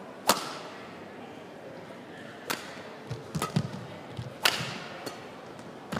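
Badminton rally: sharp cracks of rackets striking a shuttlecock, three clear hits about two seconds apart with the first, the serve, the loudest. Between the hits come low thuds of players' footsteps and lunges on the court.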